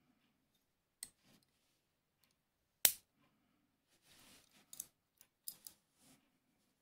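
Small Circassian-type miquelet flintlock lock worked by hand, a steel mechanism. A single loud, sharp metallic snap about three seconds in, as the lock is tripped and the cock drops onto the battery, throwing it open. Fainter clicks of the lock parts come before it and in a cluster near the end as the lock is handled and reset.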